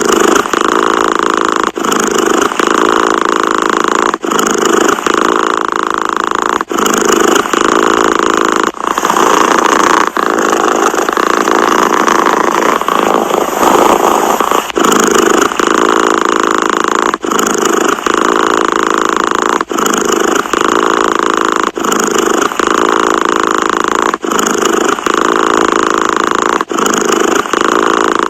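Domestic cat purring close to the microphone, a steady rumble broken by a brief dip about every two seconds as it switches breath.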